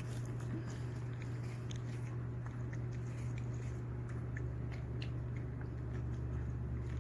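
A Pomeranian chewing and biting into watermelon, many small irregular crunching clicks over a steady low hum.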